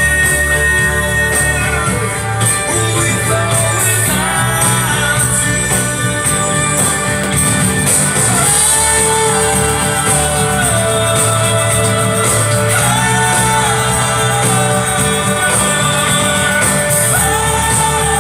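A song playing: a voice singing long held notes over a band with guitar.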